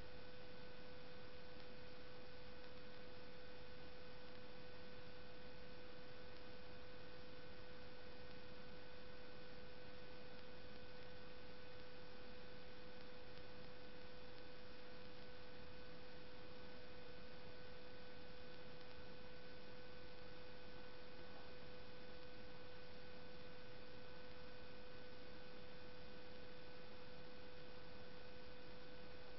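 Steady electrical hum with a constant whine and an even hiss, unchanging throughout.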